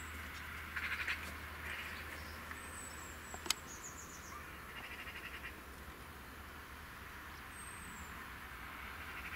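Outdoor garden ambience: small birds giving a few thin, high calls that slide down in pitch, with several short rapid rattling trills, over a steady low rumble. A single sharp click sounds about three and a half seconds in.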